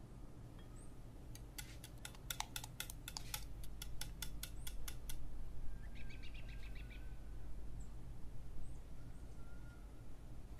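Wire whisk clinking against a glass mixing bowl in quick strokes, about five a second, for a few seconds as a thin egg-white mixture is stirred. Afterwards, faint bird chirps over a low steady hum.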